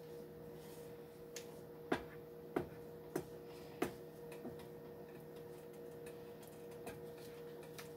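Wooden spoon stirring thick white sauce in a nonstick skillet, giving a series of light knocks and scrapes against the pan, most of them in the first half, over a faint steady hum.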